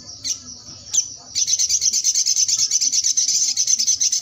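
Caged sogok ontong songbird singing: a quieter high trill, two sharp clicks, then from about a second and a half in a loud, very rapid, high chattering trill.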